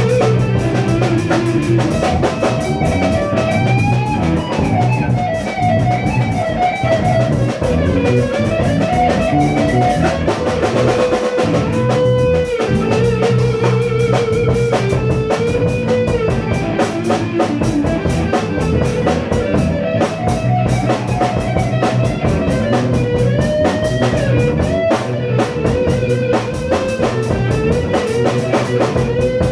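Rock band improvising: electric guitar plays a sustained lead melody with bends and vibrato over a drum kit and low, steady bass notes.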